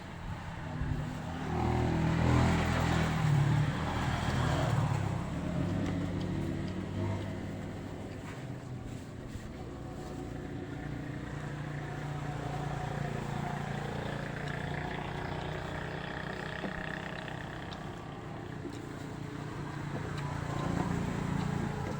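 A motor vehicle's engine running with road noise, louder from about two to five seconds in.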